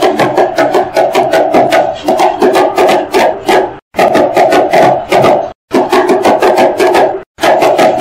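Cardboard box drummed with thin sticks: rapid hollow taps, several a second, in rhythmic runs broken by three short pauses.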